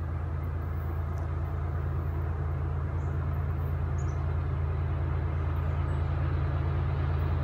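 Diesel locomotives of an approaching freight train, heard as a steady low engine rumble that grows slowly louder as they draw nearer.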